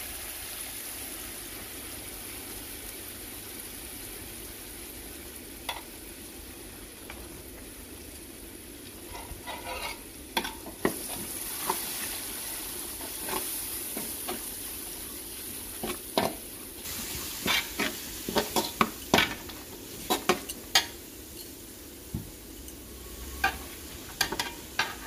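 Chopped onions, garlic and green chillies sizzling in oil in a metal pan as they are sautéed, with a slotted metal spatula scraping and clicking against the pan. The stirring starts about a third of the way in and grows busier in the second half.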